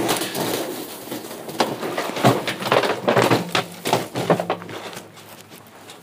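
A heavy thump, then a run of irregular scrapes, knocks and clatter from a body in dry grass and a metal trash can being handled. It tapers off after about five seconds.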